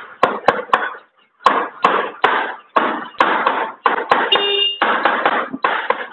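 Light hammer blows on a TVS Wego scooter engine's second crankcase half, knocking it down to seat it on the first half. The blows come about two to three a second, with a short pause about a second in, and one blow gives a brief ring about two-thirds through.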